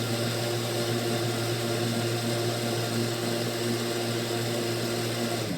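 Countertop blender running steadily, mixing German pancake batter of milk, eggs, butter, flour and sugar; at the very end it is switched off and the motor winds down.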